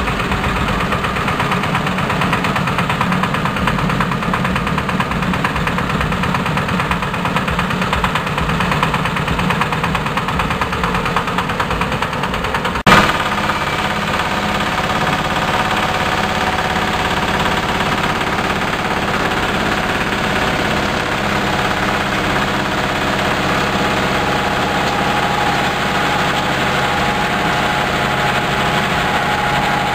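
Rice-husk hammer mill (husk grinder) running steadily, driven by its small stationary engine, as husk feeds down from the hopper. A sharp click a little under halfway through, after which the running tone shifts and a steady whine grows stronger near the end.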